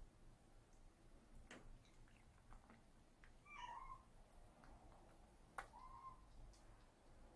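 A kitten gives a faint, short meow about halfway through and a shorter chirp-like call a couple of seconds later, with a couple of sharp faint clicks as it eats from its bowl.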